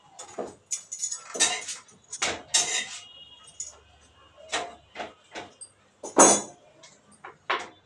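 Metal kitchen utensils and pots clattering and clinking: an irregular string of sharp knocks, some with a short metallic ring, the loudest about six seconds in.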